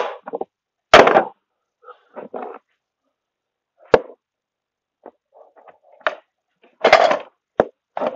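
Metal hand tools clanking and knocking as they are hung back on a wall rack and set down on a wooden workbench: about half a dozen sharp clanks at uneven intervals, a few seconds apart at first and closer together near the end.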